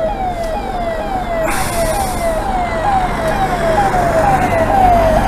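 Siren on an army convoy vehicle sounding a fast repeating wail. Each tone rises in pitch and snaps back down, a little over twice a second. A louder rush of traffic noise joins about a second and a half in.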